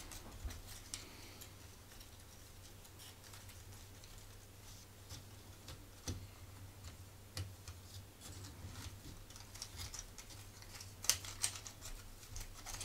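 Thin laser-cut wooden puzzle pieces clicking and tapping faintly against each other as they are handled and slotted together, with a few sharper clicks in the second half.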